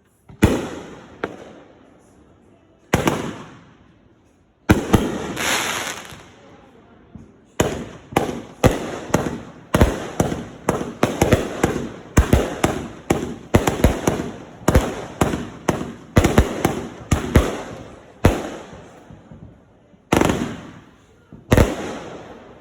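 Consumer 200-gram firework cake firing aerial shots: a string of sharp bangs, each trailing off in a crackling, echoing tail. A few come spaced out at first, then several a second for about twelve seconds, and two last bangs come near the end.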